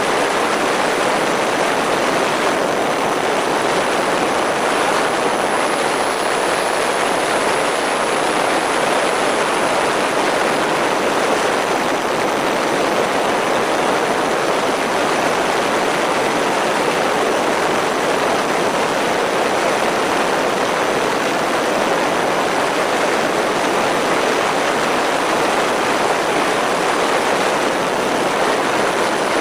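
Steady rushing noise of airflow and propellers on an MFD Crosswind Nimbus Pro twin-motor RC plane in flight, picked up by a camera mounted on its fuselage, with a faint high whine held steady throughout.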